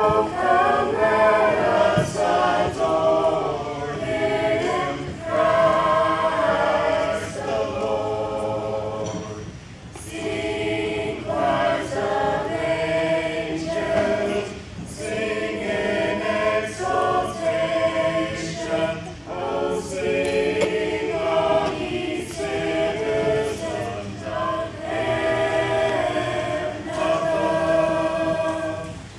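Small mixed choir of student voices singing unaccompanied, holding chords in long phrases with brief breaks for breath about every ten seconds.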